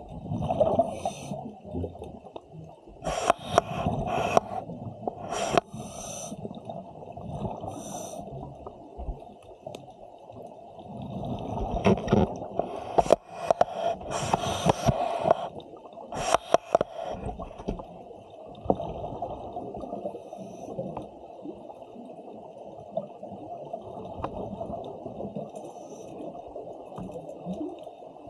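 Scuba diver breathing through a regulator underwater: repeated hissing and bubbling breaths over a steady rush of water, heard muffled through the camera's housing.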